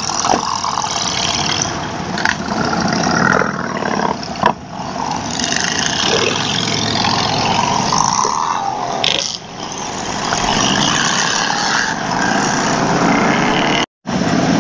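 Motorcycle cruising at highway speed: a steady engine drone under heavy wind and road noise. The sound cuts out for a moment near the end.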